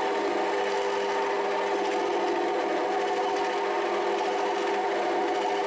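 Rotwerk 7x14 mini lathe running steadily, a constant whine from its drive and plastic gears.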